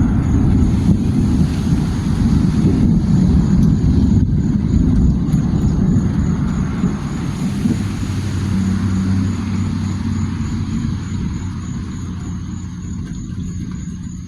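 Low engine rumble of a passing vehicle, with a steady hum coming through about two-thirds in, fading away towards the end.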